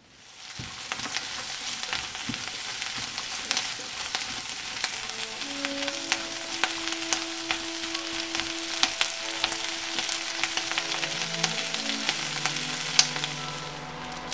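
Green peppers, garlic cloves and dried anchovies sizzling in oil in a stainless steel pot as they are stir-fried with a spatula. The sizzle builds up in the first second and holds steady, dotted with sharp pops and clicks.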